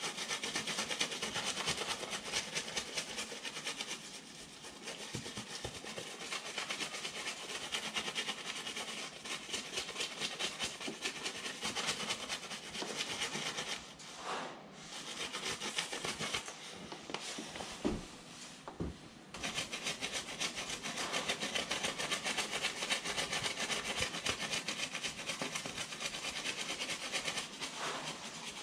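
Aerosol spray-paint can hissing as paint is sprayed through a metal stencil onto a wool bale, in long sprays broken by a few short pauses.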